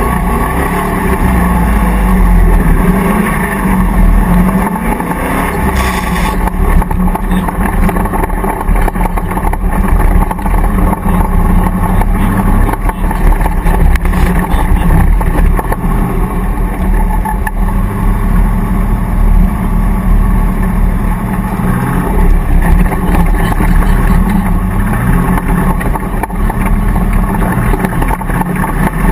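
Land Rover off-road racer's V8 engine running hard over rough ground, revs rising and falling again and again as it accelerates and eases off.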